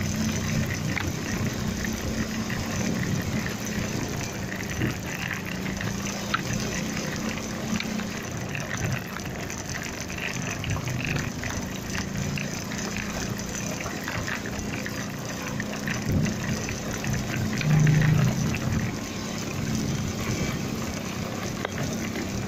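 Motorcycle engine running steadily under a constant rush of wind on the phone's microphone while riding. A short, louder low burst comes about 18 seconds in.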